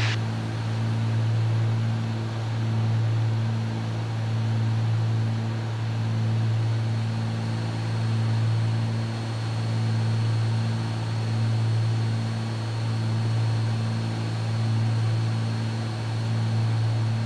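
Cabin drone of a Cessna 310's twin six-cylinder piston engines and propellers, steady in pitch with a hiss of airflow over it. The loudness swells and fades evenly every two to three seconds: the beat of the two engines turning at slightly different speeds.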